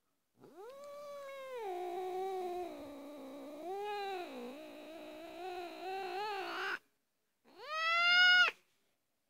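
Ginger domestic cat yowling: one long, drawn-out, wavering meow lasting about six seconds, then after a short pause a shorter, louder meow that ends abruptly.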